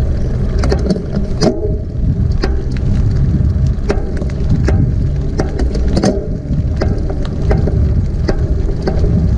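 Sharp clicking from the rear of an aluminium Santa Cruz Bronson full-suspension mountain bike while it is ridden and pedalled, repeating one to two times a second over steady wind and tyre rumble. The click keeps time with the rear wheel's rotation rather than the cranks and is felt through the frame: an unexplained frame or rear-end click that spoke, hub, cassette and bottom-bracket checks have not traced.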